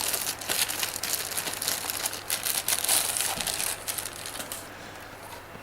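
Packaging crinkling and rustling as the docking station is unwrapped and lifted out of its box, dying down about three-quarters of the way through.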